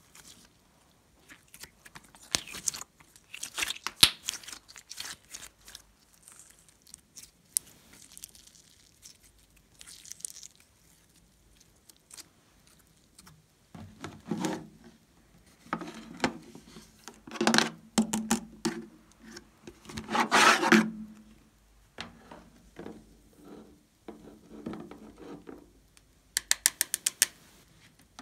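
Slime being pressed and squished, with sticky clicks and small pops, then louder rubbing and handling sounds as the tray of slime is worked. Near the end a quick, even run of rattles as glitter is shaken out over the slime.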